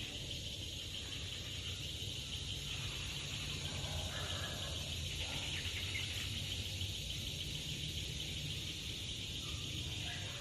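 Steady chorus of insects, one high continuous trill, over a low rumble.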